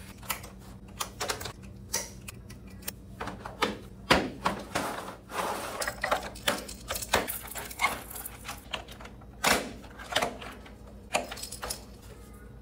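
Hard plastic parts of a baby activity centre clicking, knocking and clattering irregularly as its legs are fitted to the tray and the frame is set down on its base.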